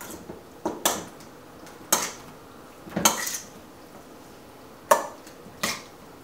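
Metal utensil clinking and scraping against a stainless steel mixing bowl while tossing sauced raw chicken wings to coat them. There are about six sharp strokes, irregularly spaced about a second apart.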